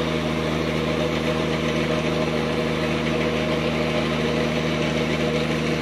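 Sand-dredging pump engine running at a steady, even speed, a constant drone with no change in pitch.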